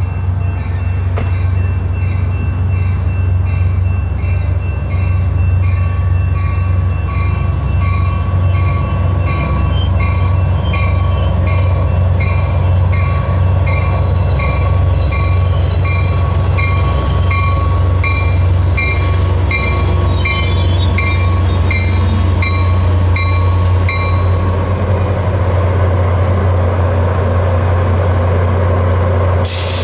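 ACE commuter train led by an EMD F40PH-3C diesel locomotive pulling into a station: a steady low diesel drone, with a bell ringing about twice a second that stops near the end. A thin steady squeal sounds through the middle as the train slows.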